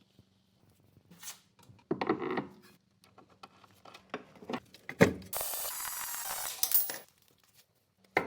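Workshop tool sounds from suspension work: a brief ratcheting clatter about two seconds in, a sharp knock about five seconds in, then a power tool running with a steady hiss for about a second and a half.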